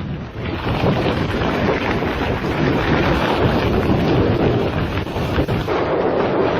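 Strong wind blowing hard across the microphone in a snowstorm: a loud, steady rushing noise that rises and falls a little.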